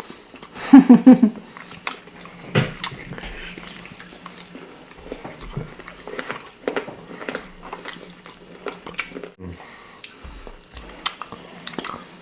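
Close-up chewing of tender pork ribs in thick sauce: wet mouth sounds and lip smacks, with a short voiced hum about a second in and a steady low hum underneath.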